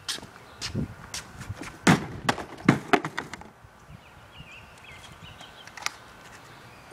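Footsteps on a concrete driveway and a plastic bike helmet being picked up: a handful of sharp, irregular taps and knocks in the first three seconds, with one more tap near the end.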